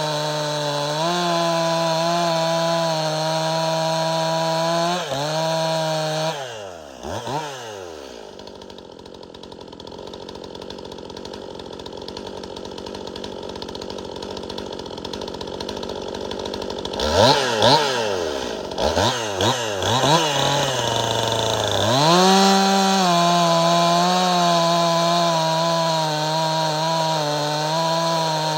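Stihl MS261C two-stroke chainsaw, bone stock, making test cuts in hard dry hickory. It runs at a steady high pitch for the first six seconds, its revs drop away, and it runs much quieter for several seconds. Then it revs up and down a few times and settles back into a steady high pitch.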